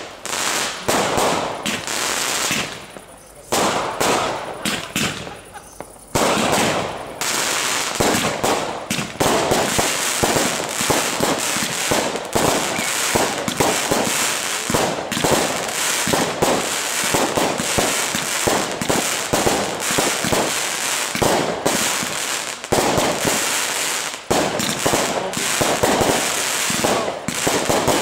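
Aerial fireworks bursting in rapid succession: many sharp bangs close together. After a short lull a few seconds in, they become an almost continuous barrage.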